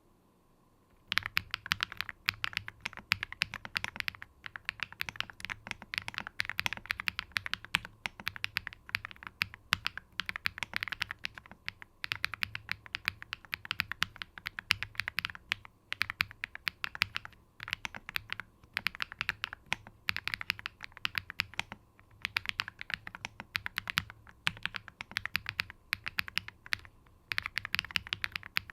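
Typing on an Evo80 custom mechanical keyboard with Higanbana (red spider lily) switches and an aluminium plate, built with no bottom case foam and no switch-socket foam. Fast keystrokes start about a second in and run on with a few short pauses.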